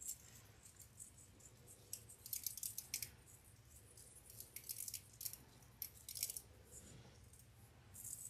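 Faint, scattered clusters of crisp little clicks and scratchy rattles from small craft beads and glitter being handled and pressed onto a fake candy apple.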